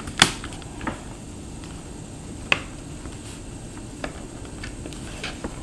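Plastic clips of a laptop screen bezel snapping into place as it is pressed back on around the edge: a series of sharp clicks, the loudest just after the start and about two and a half seconds in, with fainter ones between and after.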